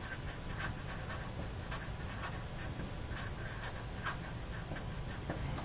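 Sharpie felt-tip marker writing on paper: a run of short, faint scratchy strokes, several a second, as letters are formed.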